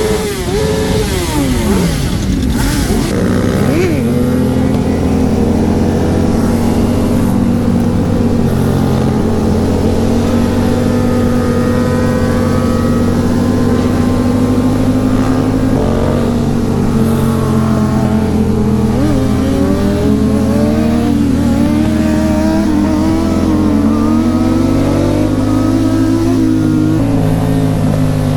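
Motorcycle engine running, its pitch dropping over the first couple of seconds, then holding fairly steady with small rises and falls.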